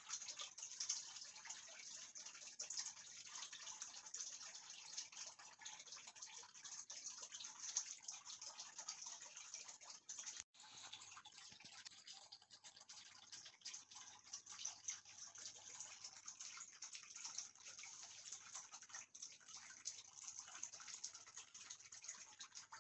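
Faint, steady hiss with light, irregular crackling, and a brief dropout about ten seconds in.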